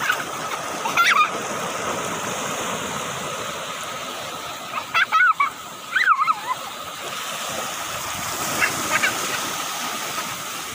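Small waves breaking and washing up on a sandy beach, a steady rush of surf. Several brief, high-pitched bending cries cut in, in a short pair about five to six seconds in and again near the end.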